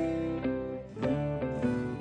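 Background music: a light melody of plucked guitar notes, with a fresh chord struck about a second in.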